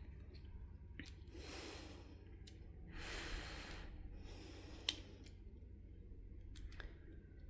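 Three breaths close to the microphone in the middle, among small sharp clicks from light switch parts being handled, the sharpest a little before the five-second mark.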